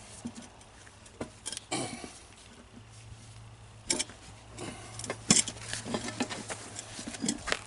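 Irregular knocks, clicks and scrapes of a lawn tractor's rubber tire and steel wheel rim being forced together by hand while working the tire bead over the rim, with one louder knock about five seconds in.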